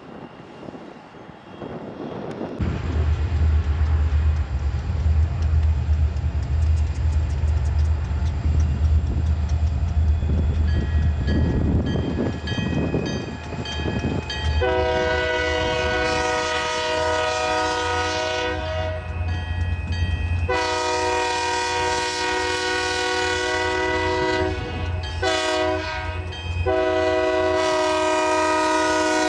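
Diesel locomotive's multi-chime air horn sounding the grade-crossing signal: two long blasts, a short one and a long one, each a chord of several notes at once. A low rumble runs under it from a few seconds in.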